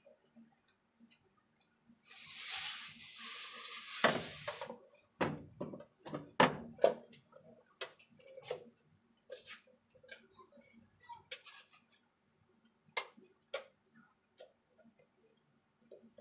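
Small metal tools and parts clinking, tapping and clicking on a workbench, with a hissing burst of about two seconds near the start.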